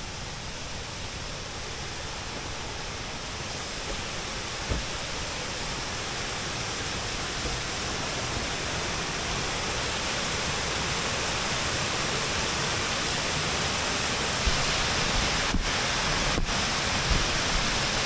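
Kuang Si Falls cascades: a steady rush of falling water that grows gradually louder.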